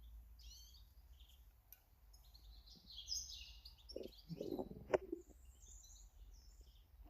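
Small garden birds chirping and calling in short, high notes. About four seconds in comes a brief low rustle ending in a sharp knock.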